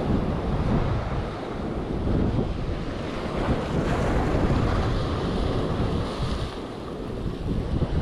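Surf breaking on the shore under strong wind, with wind buffeting the microphone; the noise swells and eases from moment to moment.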